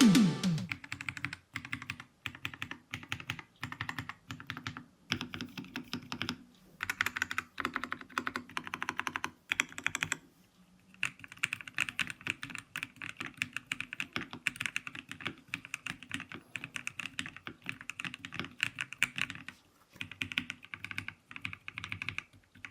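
Typing on a Keychron V6 Ultra 8K mechanical keyboard fitted with Keychron POM switches: fast runs of key clicks in bursts, broken by short pauses.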